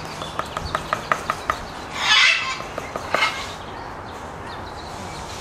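Parrots calling: a quick run of clicks, then two loud, harsh squawks about two and three seconds in.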